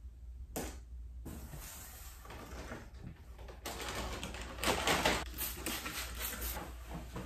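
Handling noise and rustling as things are cleared off a wooden table, then a trigger spray bottle spritzing cleaner onto the tabletop in a few quick sprays about five seconds in, with a cloth wiping.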